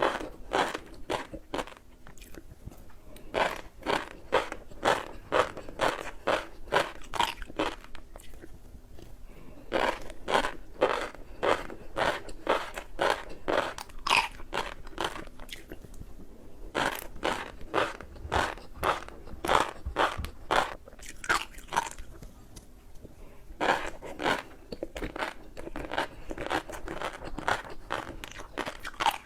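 Close-up chewing of a crunchy snack: loud, sharp crunches about two a second in steady runs, broken by two short pauses.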